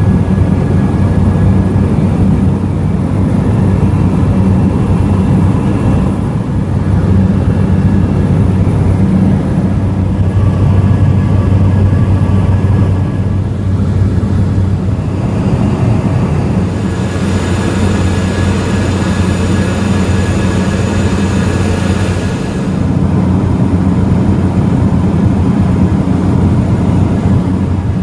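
Cabin noise of a de Havilland Single Otter floatplane in cruise: a loud, steady engine and propeller drone. For about five seconds a little past the middle it turns brighter and hissier.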